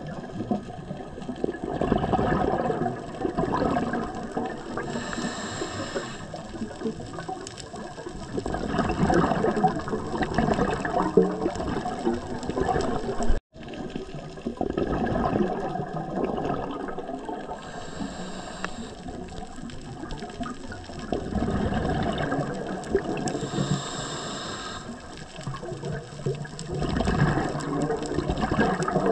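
Scuba diver breathing through a regulator underwater: short hissing inhales, each followed by a long bubbling gurgle of exhaled air, over several breaths. The sound cuts out for an instant about halfway.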